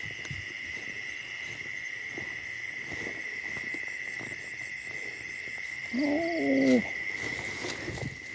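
Steady high-pitched trilling of night insects, such as crickets, with one short low hoot-like voiced call about six seconds in.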